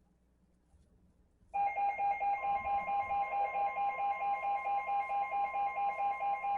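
Weather radio alert alarm sounding: after a moment of near silence it starts abruptly about a second and a half in, a loud electronic beep pulsing about four times a second. A steady tone joins about a second later, typical of the NOAA Weather Radio warning alarm tone announcing a new alert.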